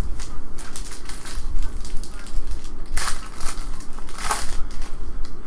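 Foil wrapper of an Upper Deck Artifacts hockey card pack crinkling as it is handled and torn open, with two sharper rips about three and four seconds in.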